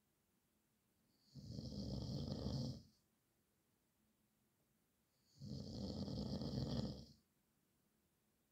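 A man snoring: two snores, each about a second and a half long and some four seconds apart, with quiet breathing gaps between.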